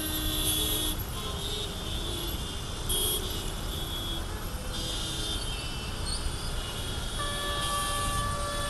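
Rush-hour traffic jam on a wet road: a steady rumble of idling and creeping car, auto-rickshaw and motorbike engines, with horns honking. A longer horn blast is held near the end.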